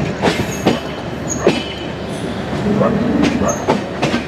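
Passenger train coaches running over the rails, recorded at the open coach door: a steady rumble with irregular sharp clacks of the wheels over rail joints and points, and a few short, high wheel squeals.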